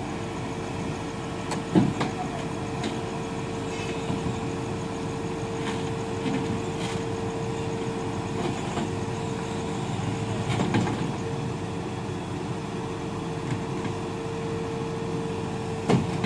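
Diesel engine of a Volvo EC210 long-reach excavator running steadily with a steady whine, broken by three short knocks, the loudest about two seconds in.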